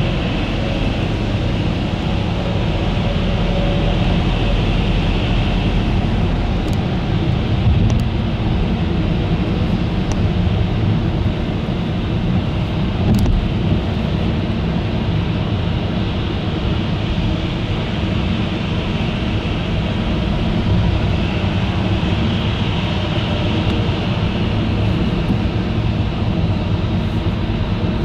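Steady road and engine noise of a moving car heard from inside the cabin: a deep rumble with tyre hiss that swells twice, and a few faint clicks.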